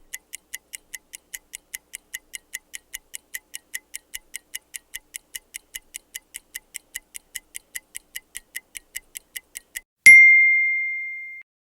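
Microwave oven's mechanical dial timer ticking steadily, about five ticks a second, then a single bell ding about ten seconds in that rings out and fades over a second and a half: the timer running out.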